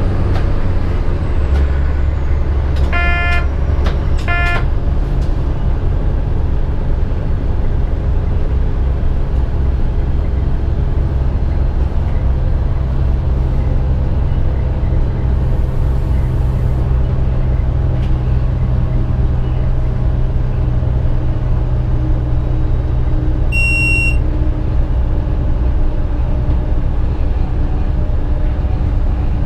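Stadler Regio-Shuttle class 650 diesel railcar running at speed, heard from the driver's cab: a steady engine drone with running noise. Two short horn toots about three and four seconds in, and a brief high electronic beep near the end.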